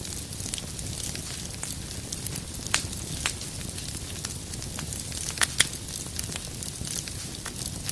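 Wood fire crackling in a fireplace: a steady low rumble and hiss of the flames with scattered sharp snaps of burning firewood, a few louder ones around the middle.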